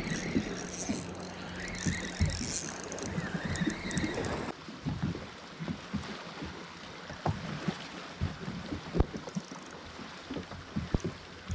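Light water slaps and scattered knocks and clicks from a sit-on-top fishing kayak's hull and rod gear.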